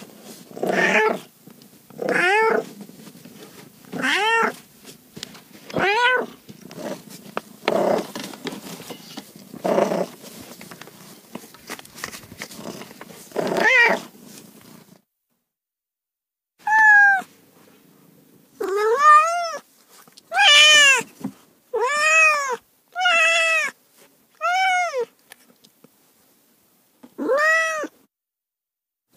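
Domestic cats meowing repeatedly. First one meow about every two seconds over a faint background hiss, then after a short silence a quicker run of clear meows, each rising and falling in pitch.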